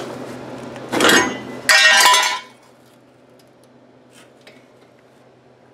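Sheet-steel truck body parts clanking as they are handled against the rusty floor support, two loud metallic clatters about one and two seconds in, the second ringing briefly, followed by a couple of faint ticks.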